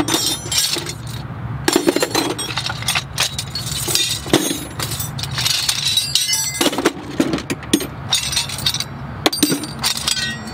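Hand tools clattering and clinking against one another and the sides of a metal toolbox as they are put away and rummaged through, in a run of irregular sharp metallic clanks.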